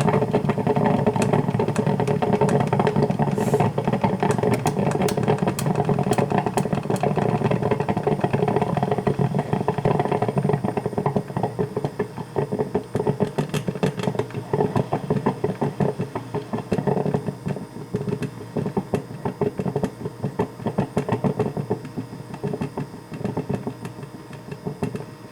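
Black & Decker drip coffee maker gurgling and sputtering as it heats and pushes water through. Dense and steady at first, it thins about halfway into scattered pops and grows quieter as the brew cycle nears its end.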